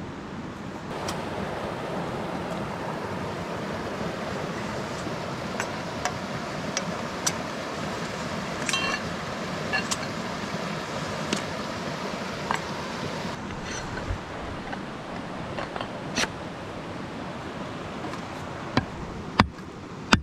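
Steady rush of a mountain stream, with scattered light clicks and knocks of metal tools and gear being handled and packed, and a couple of sharper knocks near the end as a folding pick-shovel meets stony ground.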